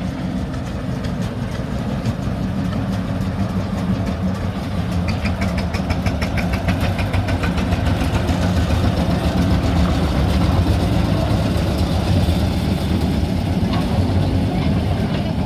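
Engine of a small narrow-gauge locomotive running steadily as it pulls its passenger cars past, growing louder as it comes close. A fast rattle joins in from about five to eight seconds in.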